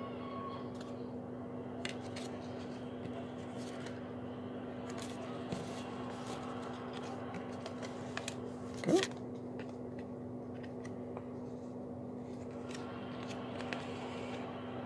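Trading cards being handled and sorted by hand: faint clicks and light slides of card stock, over a steady low hum. A short, louder squeak about nine seconds in.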